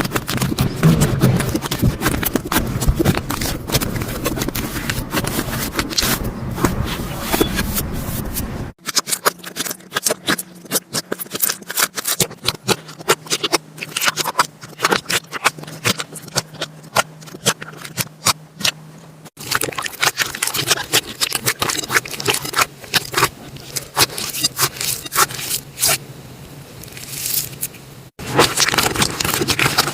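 Slime being squeezed and poked close to the microphone, making dense crackling, popping clicks. The sound breaks off abruptly three times, at each cut to another take.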